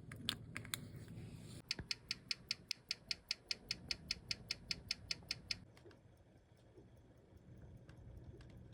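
Small sharp clicks from a mechanical wristwatch being worked on: a few irregular clicks, then an even run of about five a second for about four seconds that stops suddenly.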